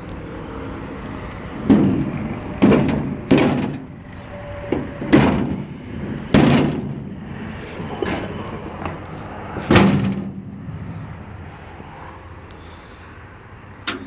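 A sheet-steel shield on a John Deere L340 large square baler being slammed shut over and over: a run of loud metal bangs, each with a short ring. There are about seven bangs in eight seconds and one more near the end, because the shield is hard to latch and takes both hands to shut.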